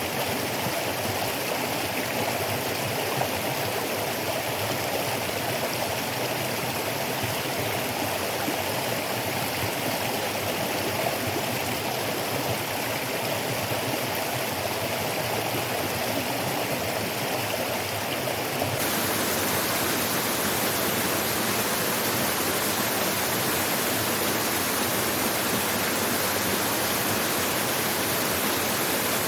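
Waterfall and stream water rushing steadily. About two-thirds of the way through, the rush suddenly becomes louder and more hissy.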